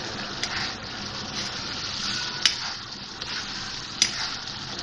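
Beef liver masala sizzling in oil in a black wok as a metal spoon stirs it, frying it down until the oil separates. The spoon clinks sharply against the pan three times: near the start, halfway and near the end.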